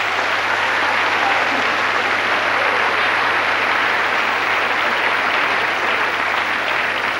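A large audience applauding in reaction to a comedy punchline: steady applause of many hands, easing off near the end.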